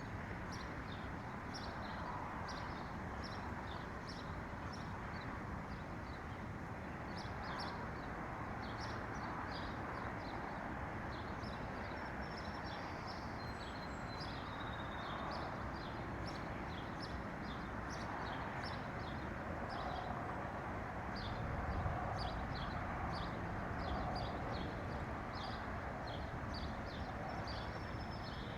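Small songbirds chirping, many quick short notes overlapping, over a steady background rush.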